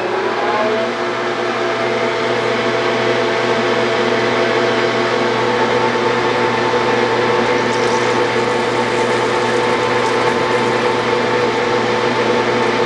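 Metal lathe running at about 650 RPM under power feed, a steady mechanical whine made of several steady tones. The pitch climbs briefly at the very start, just after the clutch is engaged, then holds steady; one tone drops out and a higher one comes in around the middle.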